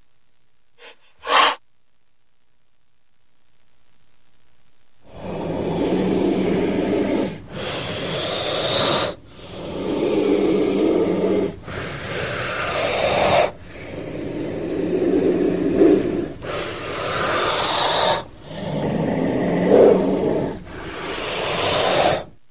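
A snake hissing: a short sharp hiss about a second in, then from about five seconds in a string of long hisses, each about two seconds, broken by short pauses like drawn breaths.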